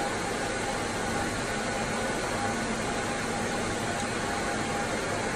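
Steady ventilation noise from fans or air conditioning: an even hiss with a faint steady hum, unchanging throughout.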